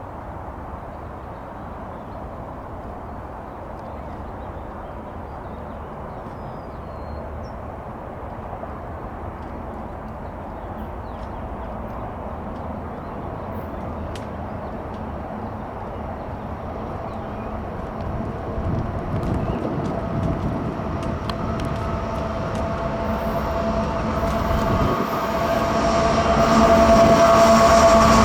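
A freight train approaching and growing steadily louder, with clicks from the wheels on the rails coming in over the second half. Steady tones join in over the last few seconds as it draws near.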